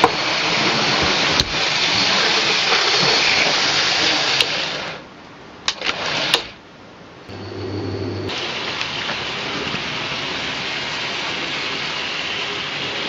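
N gauge model locomotives running on the track: a steady whirr of small electric motors and wheels on rail. It drops away about five seconds in, with a few clicks and a short hum, then comes back.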